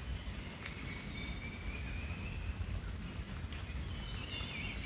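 Monsoon forest ambience: birds calling in thin whistled notes and short glides, over a steady high-pitched insect drone and a low rumble.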